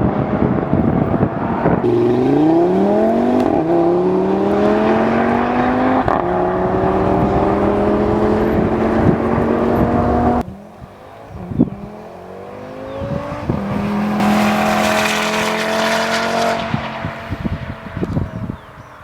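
Audi RS3 8V's turbocharged 2.5-litre five-cylinder engine pulling hard through the gears, its pitch climbing and stepping down at each upshift. About ten seconds in it lifts off abruptly, then picks up again and holds a high, steady note before fading near the end.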